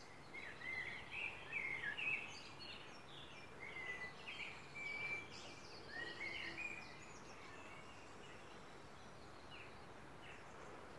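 Small birds chirping and singing: a busy run of short high notes that thins out after about seven seconds, over faint steady background noise.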